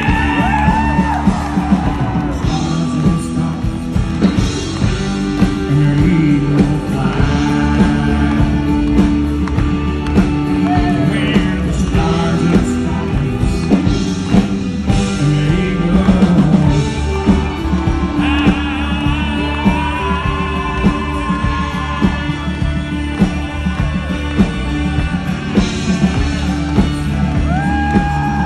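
Live country band music with a male lead singer, amplified through the stage sound system.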